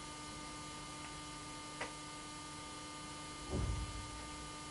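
Steady electrical mains hum with a faint hiss in the recording, with a small click a little under two seconds in and a short soft low sound about three and a half seconds in.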